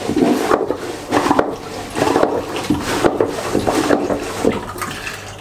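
Manual marine toilet's hand pump worked in repeated strokes, each stroke moving water through the pump. The selector is set to pump water in and out at once, so seawater is drawn into the bowl as waste water is pumped out.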